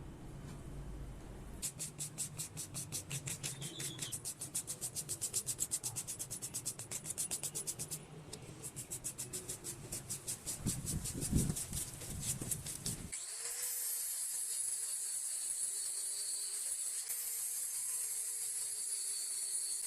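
Rapid back-and-forth rubbing or scrubbing strokes, about five or six a second, typical of brushing or sanding a metal part. About two-thirds of the way in they give way abruptly to a steady hiss with a faint hum beneath it.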